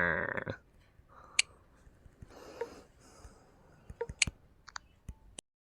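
The tail of a man's spoken word, then a few faint scattered clicks and a soft rustle. The audio then cuts off into dead silence shortly before the end.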